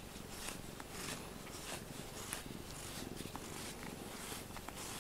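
A cat purring steadily while a grooming brush scratches through its fur in quick, repeated strokes, about two to three a second.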